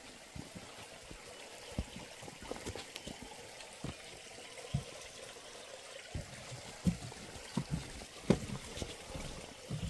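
Water trickling, with scattered low thumps at irregular intervals.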